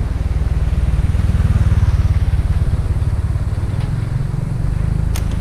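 Motorcycle engine running with a low, rapid pulse that swells about a second in and then eases off. A single sharp click comes near the end.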